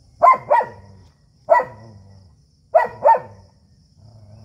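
A dog barks five times in quick pairs (two, then one, then two), with a low growl carrying on between the barks: aggressive warning barks in a standoff between dogs.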